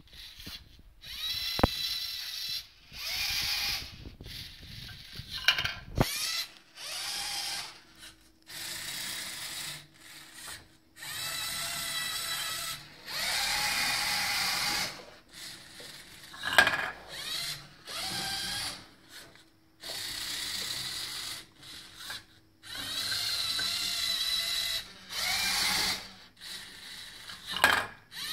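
Lego Mindstorms NXT electric motors whining in stop-start runs of one to two seconds, some gliding up or down in pitch, with a few sharp clicks, as the gantry robot moves along its rails and its claw grips and releases discs.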